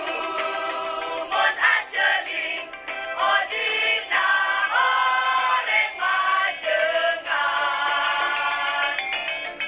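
School choir singing an Indonesian ethnic-style choral arrangement, with long held chords and notes that slide between pitches, broken by short breaths between phrases.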